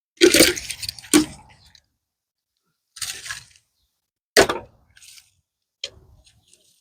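Dead pecan tree branches being cut and broken up: about five sharp woody cracks and snaps with short crackling tails, separated by pauses.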